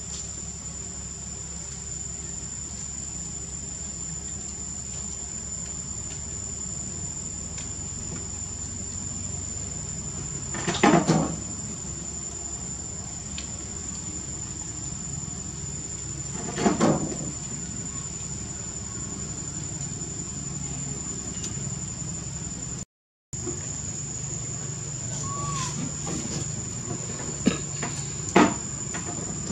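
Steady high-pitched drone of insects chirring, with a few short, loud thumps, the loudest about a third of the way in and again near the end.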